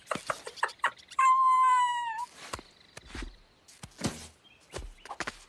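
Cartoon sound effects of a pumpkin being carved: a quick run of short scraping and clicking strokes, then a loud, held high tone that falls slightly over about a second, then more scattered short clicks.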